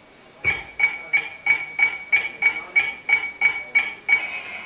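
Alarm clock sound effect played back: a bright, ringing tick repeated about three times a second, eleven in a row, then about four seconds in a steady, high-pitched alarm ring starts.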